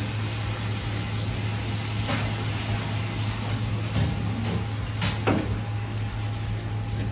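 Steady machine hum with an even hiss, as from refrigeration or ventilation equipment. A few short knocks and scrapes of a kitchen knife on a plastic cutting board, about two, four and five seconds in.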